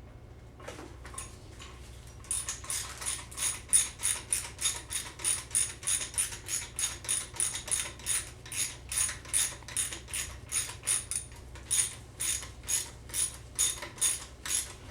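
Hand ratchet clicking steadily, about three clicks a second, while backing a screw out of a 4L60E automatic transmission; the clicking starts about two seconds in.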